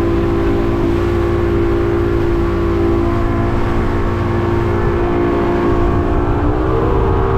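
200 hp outboard motor driving a boat at speed, a steady drone over the rush of water and spray; its pitch rises a little near the end.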